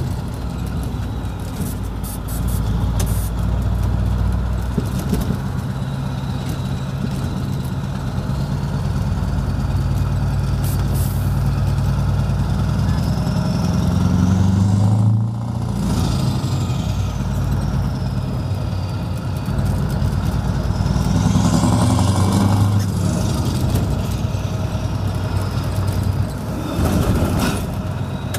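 Scania 164L's 16-litre V8, running through a loud modified exhaust, heard from inside the cab as the truck pulls through town. The engine note climbs in pitch and dips sharply for a moment about halfway, then climbs again.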